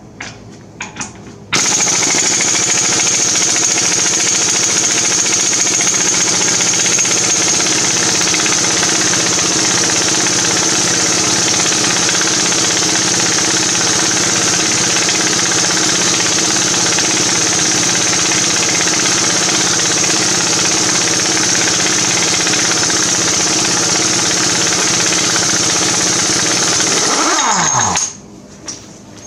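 Impact wrench hammering continuously on a half-ton GM's 35 mm axle nut for about 26 seconds. Near the end it is released and its motor winds down with a falling whine.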